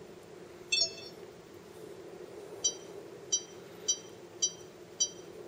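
Sony HDR-PJ650VE camcorder's touchscreen beeping as menu items are pressed: one short high beep about a second in, then a run of short, evenly spaced beeps, a little under two a second, from about halfway.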